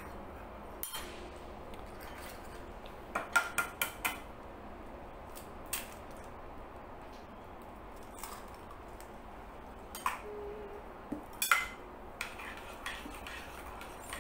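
Metal spoon clinking against a glass mixing bowl as butter, sugar and egg batter is stirred. The clinks are scattered, with a quick run of four or five about three seconds in and a few more near the end.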